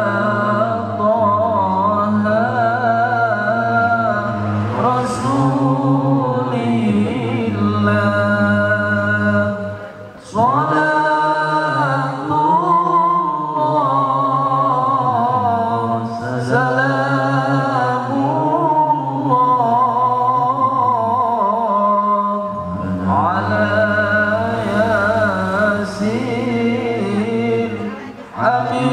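A man chanting Arabic devotional text solo in the melodious, melismatic style of a Quran reciter (qari), drawing out long ornamented phrases that waver up and down in pitch. He pauses briefly for breath about ten seconds in and again near the end.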